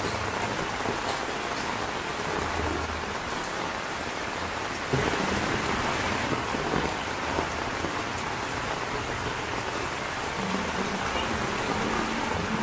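Heavy tropical rain pouring steadily onto a wet street and tin roofs, with a low hum coming in near the end.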